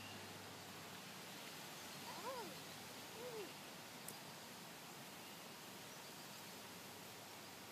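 Quiet outdoor background with two short clucks from chickens, each rising and falling in pitch, about two and three seconds in.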